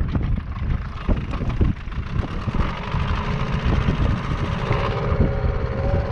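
Boat's outboard motor running, with a steadier engine note coming through about halfway in.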